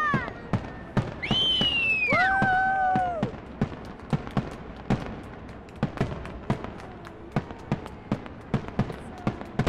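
Aerial fireworks bursting in a rapid, irregular string of sharp bangs and crackles. Between about one and three seconds in, a shrill pitched wail that falls and then holds steady rises over the bangs.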